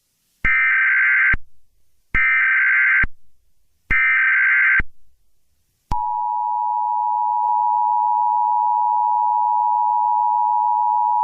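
Emergency Alert System tones: three buzzy, screeching bursts of SAME header data, about a second each, then about six seconds in the steady two-tone EAS attention signal begins.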